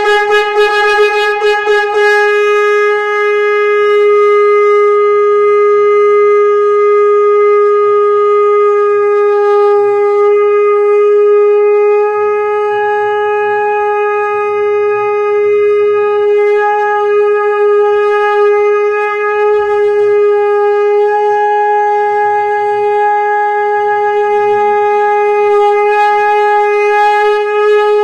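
Conch shell (shankh) blown in one long, steady note, wavering for the first couple of seconds before settling.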